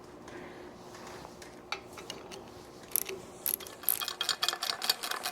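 Ratchet wrench clicking as bolts are backed out: a few single clicks, then quick, even ratcheting from about four seconds in.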